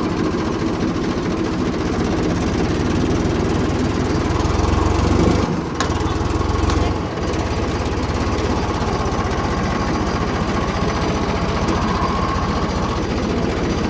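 Tractor diesel engine running steadily as it drives a water pump drawing from a well. The sound drops briefly twice about halfway through.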